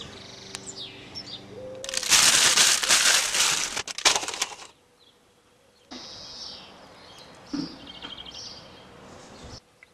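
A low steady hum, then about three seconds of loud rustling and clattering as crisp packets drop onto a heap of polystyrene cups. After a short pause, birds chirp faintly outdoors.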